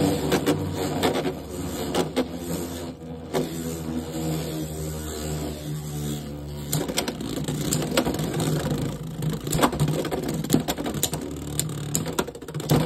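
Two Beyblade X spinning tops, Helm Knight and Talonterra, spinning in a plastic Beyblade X stadium: a steady whirring hum with scattered sharp clicks as they strike each other.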